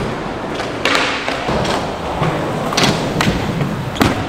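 Skateboard wheels rolling with several hard board knocks from pops and landings; the loudest knocks come near three seconds.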